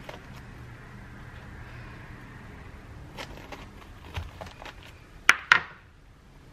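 Chef's knife scoring the skin of a pomegranate with small taps and scrapes. About five seconds in, the knife is set down on the cutting board with two sharp clacks.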